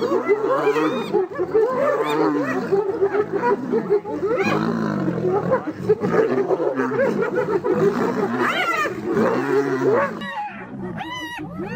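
Spotted hyenas calling during a fight, with many overlapping calls rising and falling in pitch and growling mixed in. Near the end the calls turn higher and more spaced out.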